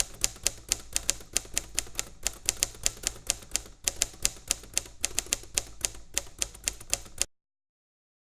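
A rapid run of sharp typing clicks, about five a second and slightly uneven, like typewriter or keyboard keys, cutting off suddenly near the end.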